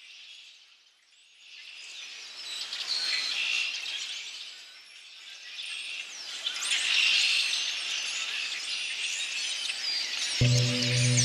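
Many small birds chirping and twittering at once, a dense chorus that grows louder after the first couple of seconds. Near the end a low, steady droning tone comes in underneath.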